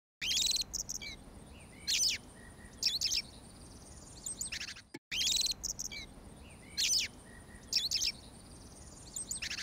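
Birds calling and chirping, a short burst every second or so, one call sweeping down in pitch, over a faint steady high whine. The same few seconds of birdsong play twice, looped after about five seconds.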